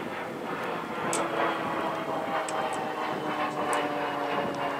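Union Pacific GE AC44CW diesel locomotives heading a stopped coal train, engines running with a steady droning whine that comes in about a second in and slowly sinks in pitch. A few sharp high ticks sound over it.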